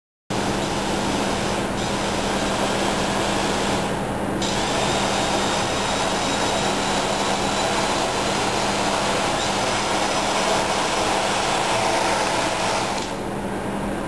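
Small electric quadrotor's four motors and propellers whirring steadily, with a faint high whine over a low hum. The sound starts suddenly, and its hiss thins out briefly about four seconds in and again near the end.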